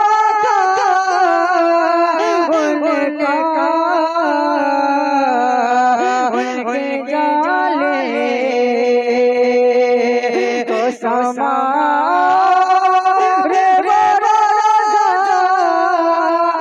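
A man singing a naat solo and unaccompanied, with long ornamented notes that waver up and down. The melody sinks lower through the middle, breaks off for a moment about eleven seconds in, then climbs back up near the end.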